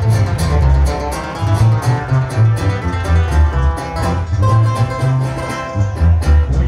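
Live band playing a corrido: a sousaphone's bass line under a strummed acoustic guitar, loud and amplified.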